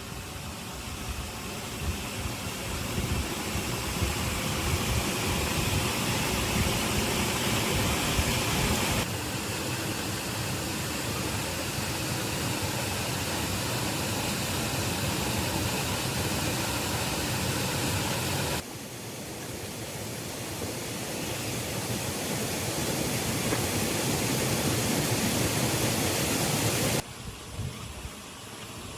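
Heavy rain falling, a steady dense hiss that jumps abruptly in level and tone three times.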